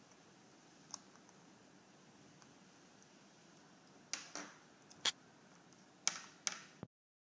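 Sharp hard-plastic clicks and taps as fingers press the micro-USB charging connector into its slot in a BikeConsole plastic bike-mount phone case: one faint click about a second in, then about six clicks and knocks in quick succession in the last three seconds, cut off abruptly.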